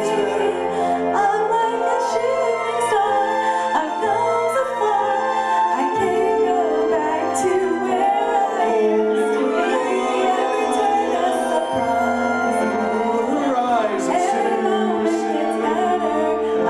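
A song playing: a singing voice carrying a melody over a steady backing of bass notes and light percussion.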